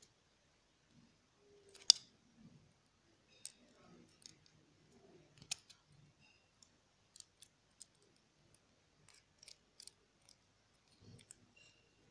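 Scattered light clicks and small taps from hands handling small plastic star sequins as they are added to a bowl of slime mixture, with one sharper click about two seconds in.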